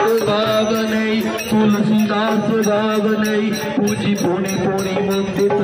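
Hindu devotional singing in praise of Hanuman: male voices singing into microphones over a steady drone and a regular percussion beat.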